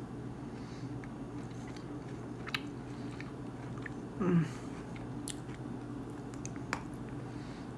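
Close-up chewing of milk chocolate with gingerbread crumbs, with a few small crisp crunches from the crumbs. A short voiced sound from the mouth, the loudest moment, comes about four seconds in.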